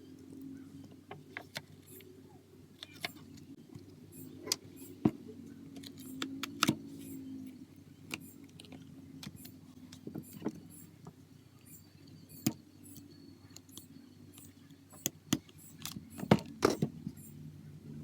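Small repair tools clicking and tapping against a smartphone's casing and internal parts during disassembly, an irregular run of sharp clicks over a steady low hum.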